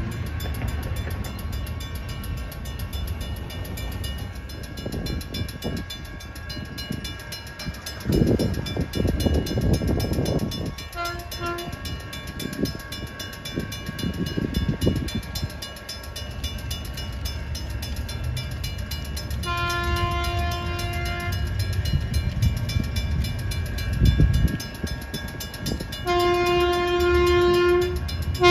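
NCTD Sprinter Siemens Desiro diesel multiple unit approaching and sounding its horn: two short toots, then two long blasts, the last running on at the end. Steady ringing tones sit underneath throughout, with gusts of low rumble.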